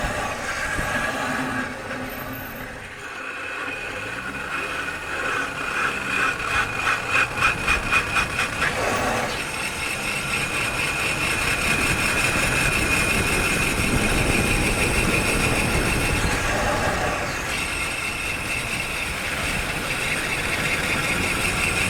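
Car brake with pads worn down to the metal scraping the brake disc as the wheel turns: a steady high metallic squeal-grind, pulsing rhythmically at about four beats a second for a couple of seconds near the middle, over road and engine noise. The metal-on-metal contact is eating into and thinning the disc.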